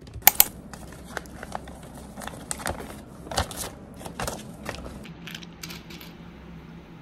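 Handling sounds: an irregular string of small sharp clicks and crinkles, two louder ones just after the start, thinning out after about five seconds, over a faint low room hum.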